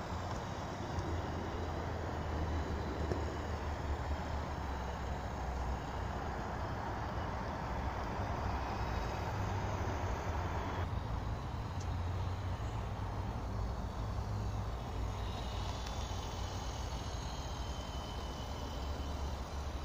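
HO-scale model steam locomotive running along the track, a steady low motor hum and rumble of its wheels on the rails, with an abrupt change in the sound about halfway through.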